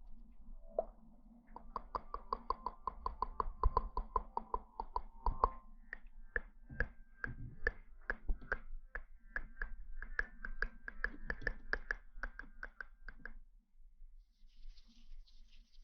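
Rapid tapping on a hard object that rings with a clear pitch, about four taps a second. The pitch of the taps jumps higher about six seconds in, and the tapping stops near the end.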